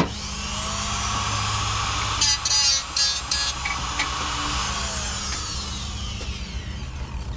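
Power tool fitted with a cutting wheel, used as a makeshift grinder, spinning up sharply. About two to three and a half seconds in it bites the rusted metal of a mower deck in a few short grinding bursts. It then whines down as it coasts to a stop.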